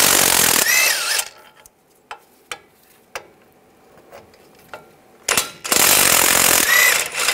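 Cordless brushless impact wrench with a 21 mm socket loosening and running out the wheel-hub bolts on the back of the steering knuckle. The first burst stops about a second in and the second starts about five seconds in. The pitch rises near the end of each burst as the bolt spins free, and there are a few light clicks and taps of the socket and metal in between.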